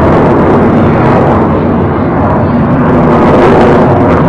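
Jet aircraft flying low at an air show: loud, steady engine noise without a clear pitch, holding level throughout.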